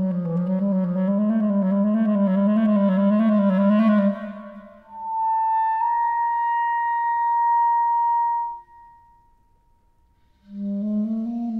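Solo clarinet playing a contemporary piece. A low note wavers slowly in pitch, about twice a second, then fades. A high note is held steady for a few seconds and dies away into a short pause, and near the end the low wavering note returns.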